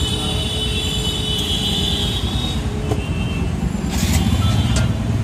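Road traffic rumbling steadily past. A thin high squeal runs through the first two and a half seconds, and a brief clatter comes about four seconds in, after which the rumble grows louder.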